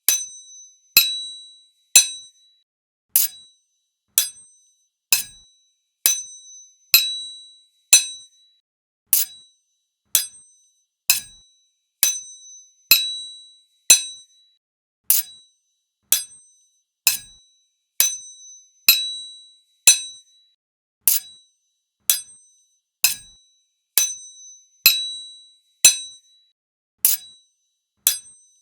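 Sword blades striking each other, about one clash a second, each a sharp metallic clink followed by a brief high ringing that dies away within about half a second.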